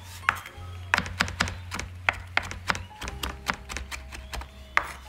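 Chef's knife coarse-chopping fresh parsley on a wooden cutting board: about a dozen irregular knocks of the blade on the board, the loudest near the end.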